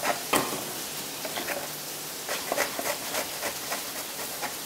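A faint steady sizzle of food frying on low heat, with a few light taps and knocks of kitchen utensils, several of them close together about two to three seconds in.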